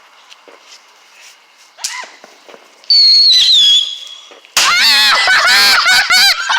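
A whistling firework going off: one long steady whistle that drops in pitch partway through, then several warbling whistles at once with crackling, all loud.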